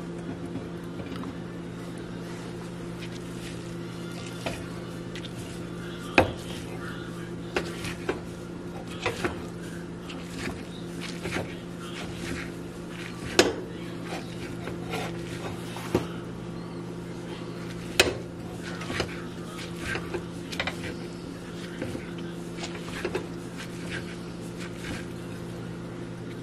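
Plastic meat-shredding claws tearing cooked chicken on a ceramic plate: irregular scraping and clicking, with a few sharp clacks where the claws strike the plate. A steady low hum runs underneath.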